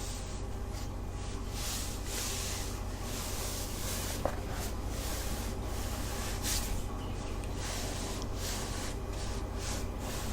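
Soft, repeated rubbing strokes close to the microphone over a steady low hum, with one small click about four seconds in.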